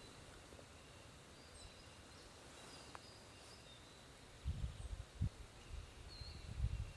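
Quiet lakeside ambience with a few short, high bird chirps. From just past halfway, irregular low rumbles of wind gusting on the microphone become the loudest sound.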